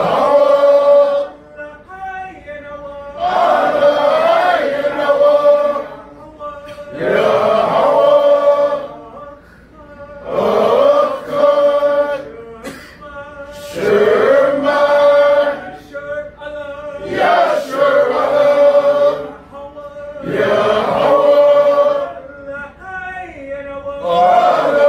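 A group of men chanting a praise song together, a short phrase coming back about every three and a half seconds, each ending on a long held note.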